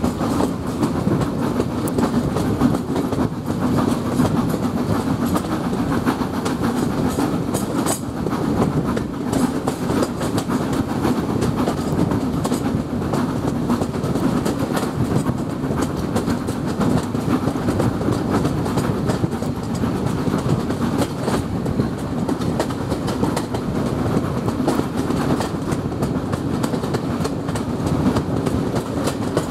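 Passenger coach of a steam-hauled train running along the track at speed: a steady rumble of wheels on rail, with a few faint clicks.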